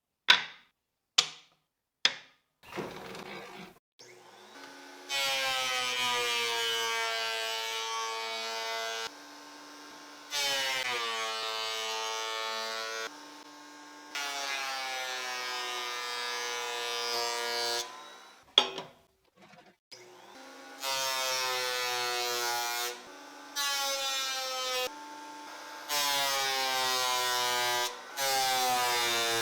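Three sharp knocks, then a handheld electric power tool running in repeated bursts of two to four seconds each, its motor pitch bending as it speeds up and slows under load.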